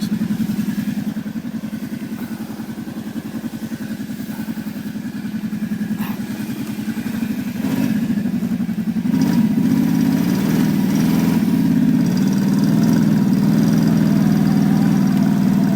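Engine of a vehicle towing a dead snowmobile on a rope, running steadily, then growing louder about eight seconds in and staying loud as it pulls.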